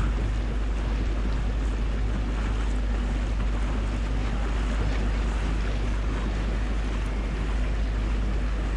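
Boat under way: steady wind rumble on the microphone and water noise, with a faint low engine hum underneath.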